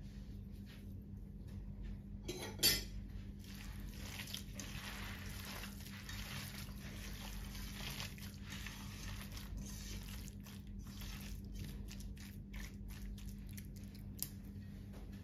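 A hand squeezing and mixing raw chicken in a wet herb marinade in a pan, soft squelching and crackling. Once, about two and a half seconds in, a sharp clink of a spoon against the pan.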